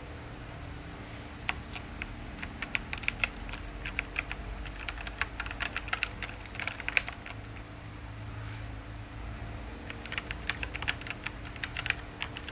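Typing on an Azio MK-MAC-U01 mechanical keyboard with K-Switch keys: rapid key clicks in two bursts, the second starting after a pause of a few seconds.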